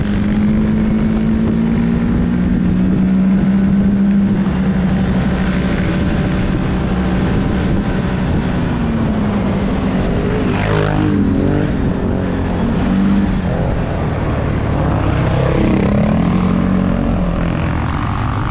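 Single-cylinder ATV engine running hard under throttle, a steady drone whose pitch sags and climbs several times in the second half, with a short burst of noise about ten seconds in.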